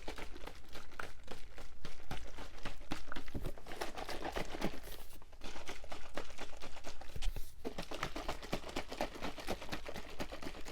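Close-miked crinkling and rustling: a dense run of small crackles that dips briefly about five seconds in.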